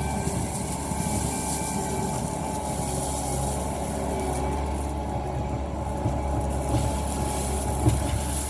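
Bobcat T650 compact track loader's diesel engine running steadily: a constant low drone with a thin, steady whine above it.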